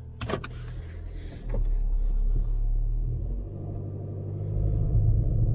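Car engine and tyre rumble heard from inside the cabin as the car drives off on a snow-covered road, getting louder about a second and a half in.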